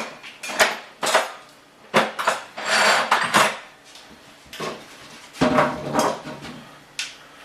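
Metal hand tools clattering and clinking as they are picked through, in several irregular bursts.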